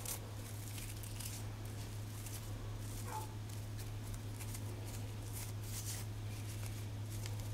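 Steady low electrical hum, with faint rustling and light taps as hands handle a small ribbon bow. One short, faint gliding squeal about three seconds in.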